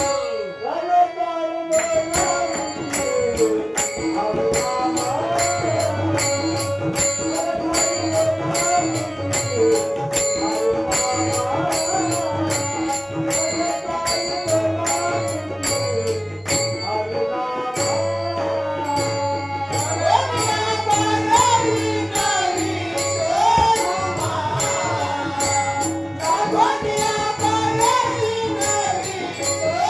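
Marathi abhang devotional song: a male voice singing a gliding melody over tabla, with jingling percussion keeping a steady beat and a held drone note underneath.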